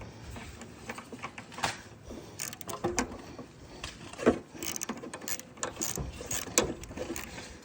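Irregular metallic clicks and knocks of a wrench working the half-inch bolt on a lawn mower carburetor's float bowl to loosen it.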